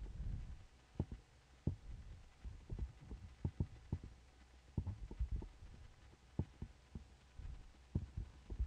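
Faint irregular clicks and low thumps from a computer mouse being clicked and moved on a desk, picked up by the microphone over a low hum.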